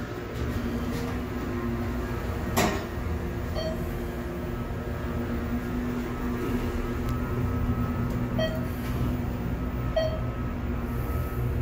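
Steady low hum inside a ThyssenKrupp glass elevator car as it runs, with one sharp click about two and a half seconds in and three short high beeps later on.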